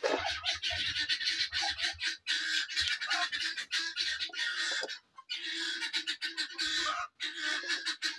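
Chickens squawking and clucking in rapid runs, broken by short pauses about five and seven seconds in. A hen is disturbed from sitting on her eggs.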